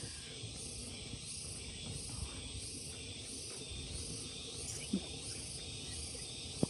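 Chorus of cicadas: a steady, high buzzing hiss that swells and fades about twice a second.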